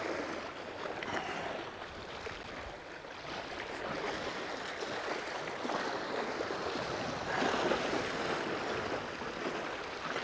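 Sea waves washing against rocky ledges: a steady rush of water that swells a little about three-quarters of the way through.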